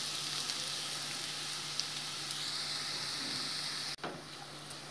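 Chopped onions sizzling in hot oil in a pan, a steady hiss that drops suddenly about four seconds in and then carries on more quietly.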